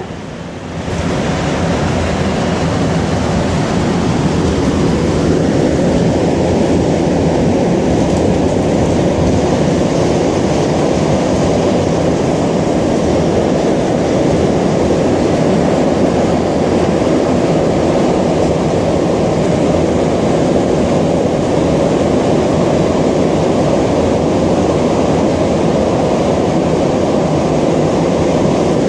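Rubber-tyred MR-73 metro car running at speed through a tunnel, heard from inside the car: a loud, steady rumble that swells over the first second and then holds.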